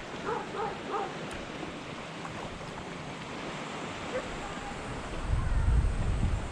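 Sea surf washing steadily on the shore under wind, with a few short high calls in the first second. Near the end a gust of wind buffets the microphone in a loud low rumble.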